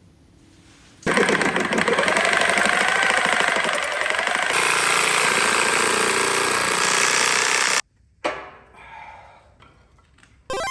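A power tool running hard in one long burst of about seven seconds on rusted exhaust manifold bolts, its pitch wavering under load; it cuts off abruptly. Just before the end a short burst of electronic tones starts.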